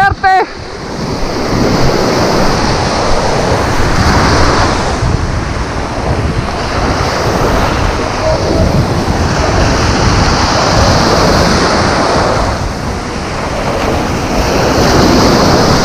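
Rough surf breaking on the shore under strong wind, with wind buffeting the microphone, surging louder every few seconds.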